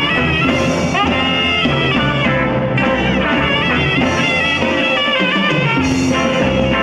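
A live band playing: three saxophones on a melody over electric guitar, bass guitar and drums, with a quick upward slide in the horns about a second in.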